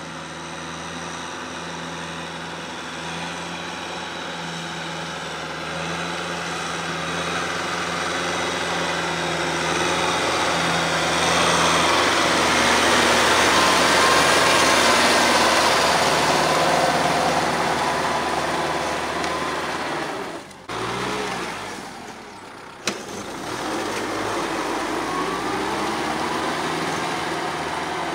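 Kubota tractor's diesel engine running steadily under load in a muddy paddy, getting louder toward the middle as it comes close, then briefly cut off twice about two-thirds of the way through.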